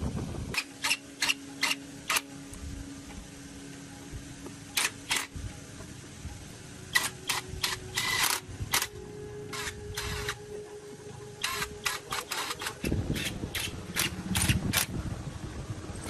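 Irregular clusters of sharp clicks and taps, some quick runs of four or five, over a faint steady hum.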